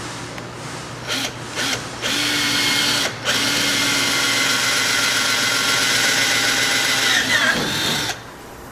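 Power drill with a 3/8-inch bit boring a hole through a kayak's thick plastic hull: two short blips of the trigger, then a steady run of about six seconds with a brief break about three seconds in. The motor winds down in pitch just before it stops near the end.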